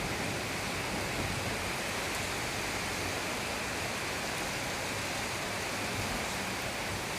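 Steady hiss of heavy rain falling during a thunderstorm, with no thunderclap.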